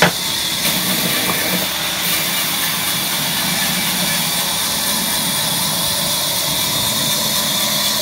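Large sawmill band saw running steadily, its blade giving a loud, even, high-pitched whirr, with one sharp knock right at the start.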